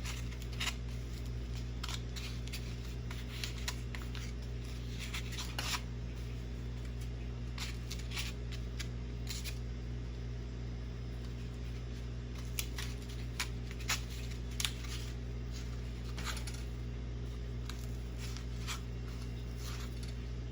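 Irregular light clicks and short rustles of hands handling biscuit dough and the dish, over a steady low electrical hum.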